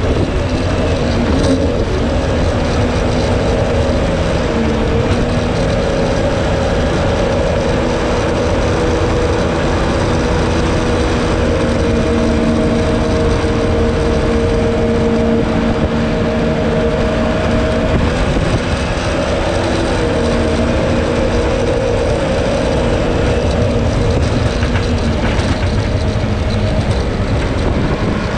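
Jet boat engine running steadily at speed, its pitch shifting a little now and then, over the rush of river water along the hull.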